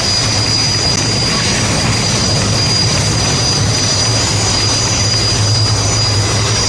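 Military helicopter hovering low overhead, a steady high turbine whine over a low rotor drone.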